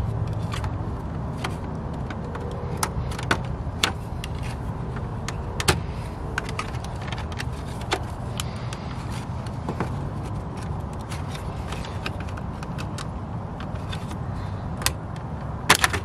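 Small plastic clicks, taps and scrapes as a pocket knife and fingers pry a 2005 Chevy Silverado's headlight switch assembly out of its dash clips, over a steady low hum. A louder cluster of clicks comes near the end as the switch pops out.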